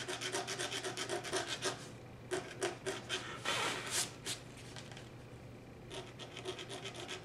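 Craft knife blade scratching quick, light strokes across the painted surface of cold-pressed watercolour paper, shallow enough not to cut through. The strokes thin out for a couple of seconds midway and pick up again near the end.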